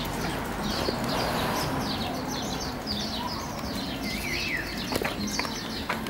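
Small birds chirping busily: many short, high, falling chirps, one after another, with a brief lower warble about four seconds in. A couple of sharp knocks sound near the end.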